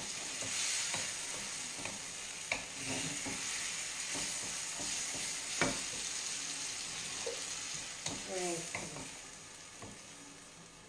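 Ravioli sizzling in a frying pan with nduja and smoked provola melting over them, stirred with a wooden spoon that clicks against the pan a couple of times. The sizzling fades somewhat near the end.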